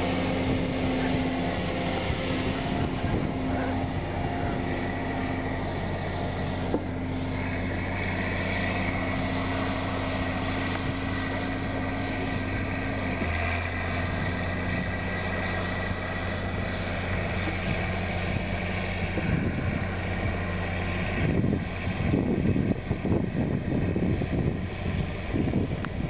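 Caterpillar Challenger 55E tracked tractor's engine running steadily as it pulls a side-dressing applicator, a constant drone whose pitch shifts slightly about halfway through. Wind gusts buffet the microphone over the last few seconds.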